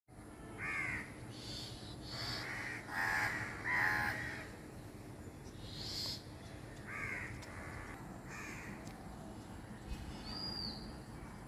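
Harsh bird calls, about half a dozen short ones in a row, with a few higher chirps from another bird around six and ten seconds in.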